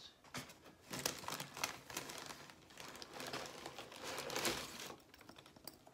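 Tissue wrapping paper rustling and crinkling as it is handled and folded back from a sneaker in its box, with irregular crackles that die down near the end.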